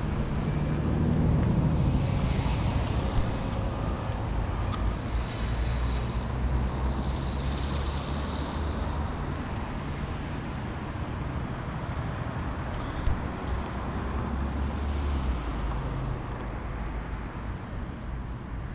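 Car engine revving hard with tyres scrubbing as the hatchback drives tight circles on full steering lock, the tyres losing grip. A few sharp cracks about thirteen seconds in.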